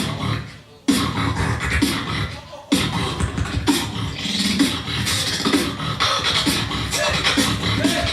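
Beatboxing: a solo beatboxer's vocal beat with bass tones and percussive hits. It fades out within the first second and cuts back in suddenly, drops out again briefly just before three seconds in, then the beat returns at full level.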